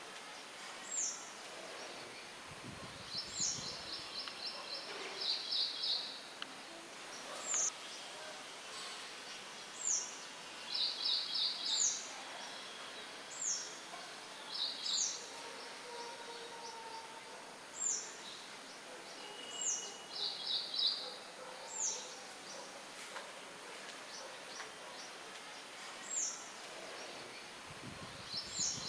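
Songbirds calling over a steady wind hiss: a short, high, downward-sweeping note repeated every second or two, with several quick rapid trills a little lower in pitch.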